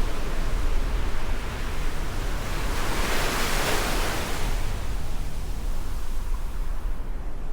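Rough, stormy sea surf: a wave breaks and washes in with a hiss that swells about three seconds in and fades away. A low rumble of wind on the microphone runs underneath.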